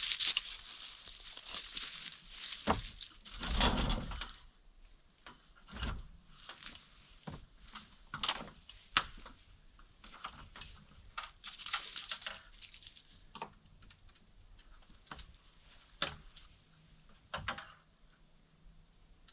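Irregular rustling, scraping and light knocks of hands-on repair work, handling boards and materials, louder in the first few seconds and sparser after.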